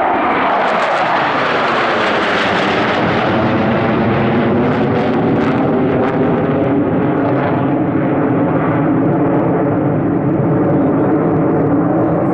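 Su-27 fighter jets flying over in a five-ship formation, their jet engines making a loud, steady roar. The engine tone falls in pitch over the first couple of seconds as they pass, then holds steady.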